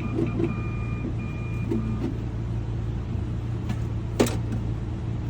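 A series of short electronic beeps of different lengths in the first two seconds, over a steady low hum, then a single sharp click about four seconds in.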